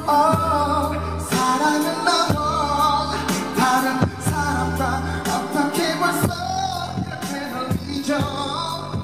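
Live pop song over a concert sound system: a male singer singing into a handheld microphone over a backing track with deep held bass notes, recorded from the audience.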